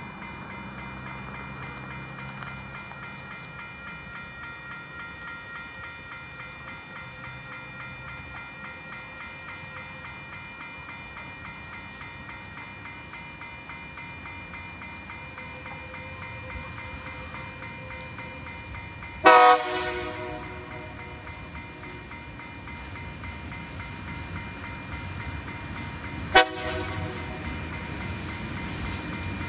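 Level crossing warning bell ringing steadily as a TasRail TR class diesel freight locomotive approaches. The locomotive's horn sounds one loud blast of under a second about two-thirds of the way through, then a short toot about seven seconds later. The diesel rumble grows louder near the end as the train reaches the crossing.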